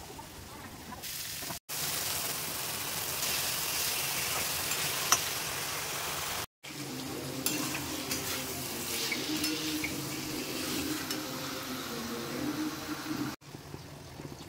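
Minced meat and potatoes sizzling as they fry in a metal kadai, stirred now and then with a metal spatula. The sizzle breaks off briefly twice.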